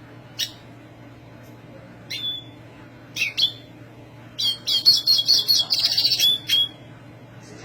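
Black siskin singing: three short, high single calls, then a rapid twittering song phrase of about two seconds. A steady low hum runs underneath.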